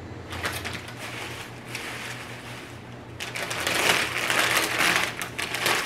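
Clear plastic packaging bag crinkling and rustling as an artificial rose garland with fabric leaves is pulled out of it. The sound comes in two spells, the second, from about three seconds in, the louder.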